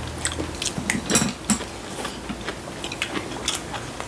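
Eating at a table: wooden chopsticks clicking on ceramic bowls and small clatters of dishes as noodle soup is eaten, with a louder clatter about a second in.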